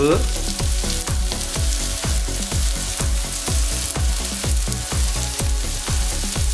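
Hot ghee sizzling in a frying pan of sliced onions, green chillies and ginger, with background music keeping a steady beat underneath.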